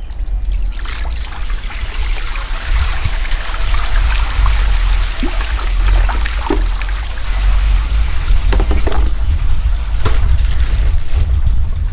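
Water trickling and splashing over a steady low rumble, with scattered short knocks and clicks.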